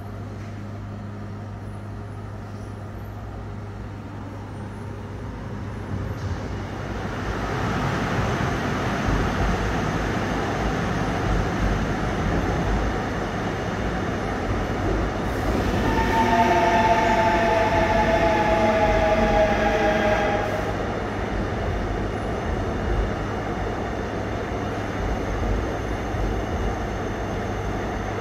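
Seoul Subway Line 4 electric train running through the station without stopping. Its wheels rumble on the rails, building from about six seconds in and staying loud as the cars pass. For about four seconds midway a high tone sounds over the rumble, sliding slightly lower.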